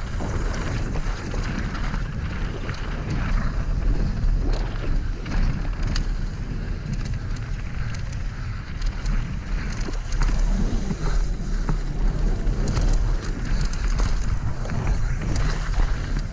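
Wind buffeting the microphone of a mountain bike speeding downhill, over the rolling noise of knobby tyres on dirt and loose gravel, with frequent short clatters and knocks from the bike over bumps.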